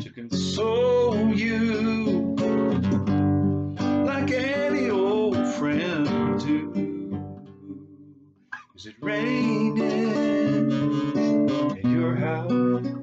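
Acoustic guitar played with a man's singing voice over it. The music drops out briefly about two-thirds of the way through, then resumes.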